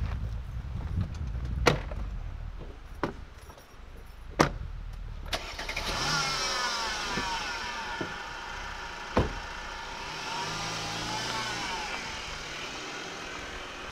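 Car doors shutting with a few sharp knocks, then a Mercedes-Benz C-Class sedan running as it pulls away slowly.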